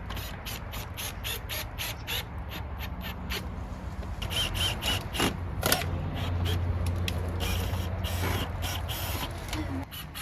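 Installation work noise: a rapid series of sharp clicks and knocks from tools and parts being handled, over a steady low hum that swells about six seconds in.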